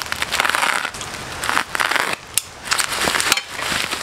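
Plastic bubble wrap crinkling and crackling as a utility knife slits it and hands pull it open, in several separate bursts.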